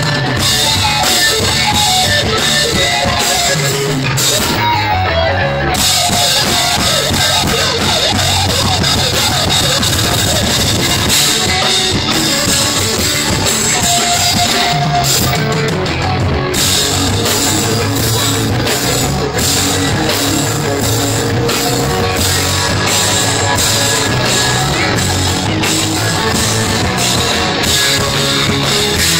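Live rock band playing loud: drum kit keeping a steady beat under electric guitars.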